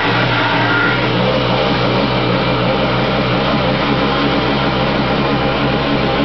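Kawasaki JS550 jet ski's two-stroke twin engine running steadily, with a slight change in its note about a second in. It carries the pinging from the carburetor and cylinder head area and the low rumble from the rear that the owner is trying to diagnose. He wonders whether the pinging is pre-ignition and thinks the rumble is probably worn pump housing bearings.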